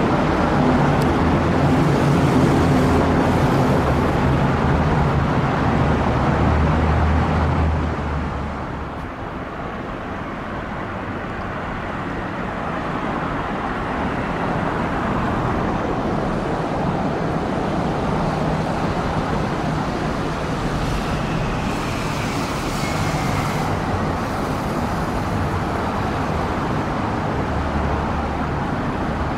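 Steady road traffic passing, with a vehicle engine's drone loudest over the first eight seconds or so before it eases into a quieter, continuous traffic hum.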